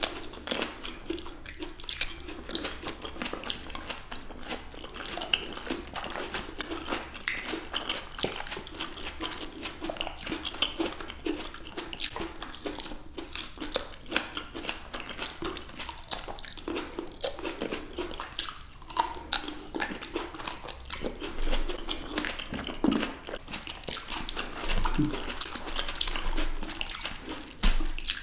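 Close-miked ASMR eating sounds of fresh grapes: juicy bites and chewing, a dense run of small wet clicks and crunches from two people eating.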